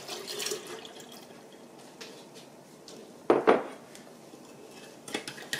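Dark soy sauce pouring from a glass jug into a glass pitcher over sugar, trailing off after about a second. A single loud knock a little over three seconds in, then a wooden spoon starting to clink against the glass pitcher near the end.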